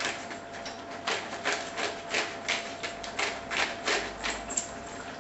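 Hand-twisted pepper mill grinding black pepper: a steady run of short grinding strokes, about three a second.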